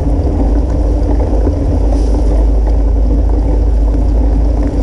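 Steady wind rumble buffeting a bike-mounted action camera's microphone while riding through the rain, with the tyres hissing over the wet path underneath.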